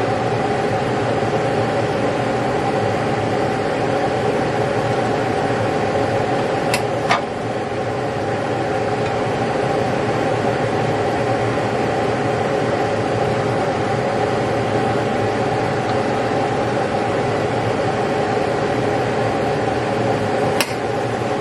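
A steady mechanical hum, like a running fan or motor, with two sharp clicks: one about seven seconds in and one near the end.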